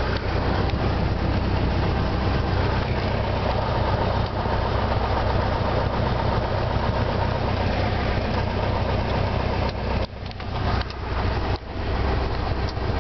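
Cessna 172 Skyhawk's engine and propeller running steadily at low power as the plane rolls on the ground, heard from inside the cockpit. The level dips briefly twice near the end.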